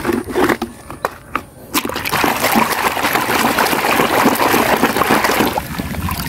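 Plastic toys clicking and knocking together as one is taken from a plastic basket, then about two seconds in a steady sloshing and splashing as a toy pickup truck is scrubbed with a brush and swished through a basin of muddy, soapy water. The sloshing eases off near the end.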